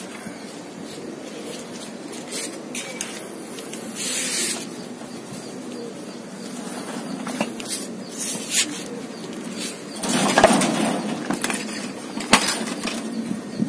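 Plastic garden mesh netting being handled and pulled off a vegetable bed: rustling and scraping, with a few sharp knocks, the loudest about ten seconds in and another about two seconds later.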